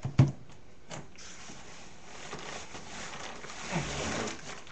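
Handling noise from unpacking: a short knock just after the start, then about three seconds of rustling as packaging is moved about, growing louder near the end.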